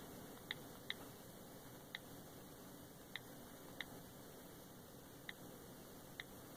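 iPhone on-screen keyboard clicks: seven short, sharp key clicks at uneven intervals, one for each key tapped while typing, over a faint steady hiss.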